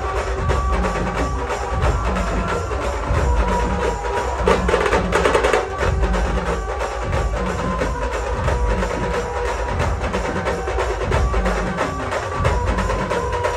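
Loud music from a DJ sound system: a fast percussion beat over heavy, steady bass, with a sustained melody on top.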